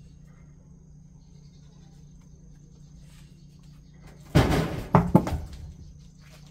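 A heavy log slides off a truck bed and hits the pavement with a loud thud about four seconds in. Two quick knocks follow as it bounces and settles.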